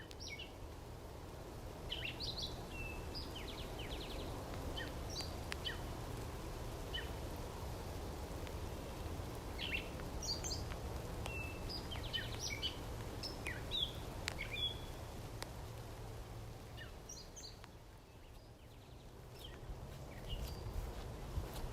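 Several small birds chirping and calling in short, scattered notes over a steady low background rumble of outdoor noise.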